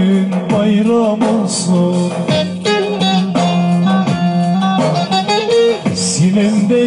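Live guitar playing accompanying a man singing a Turkish folk song (türkü), the voice dropping out for a moment around the middle.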